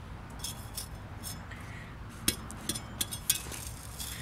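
A handful of short, sharp metallic clinks and scrapes: a claw hammer's steel head knocking against stony, gravelly dirt. The two sharpest strikes come in the second half.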